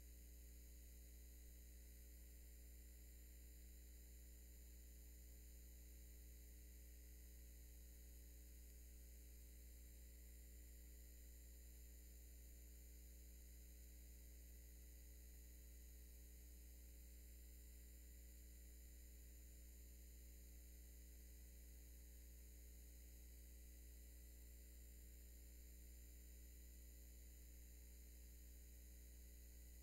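Near silence: a steady low electrical hum with faint hiss, unchanging, with no audible clicks or handling sounds.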